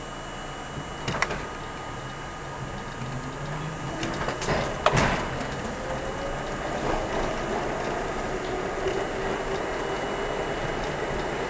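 R32 subway train accelerating out of a station into the tunnel, its traction motors whining upward in pitch and then holding steady. There is a knock about a second in and a louder metallic clank near the middle.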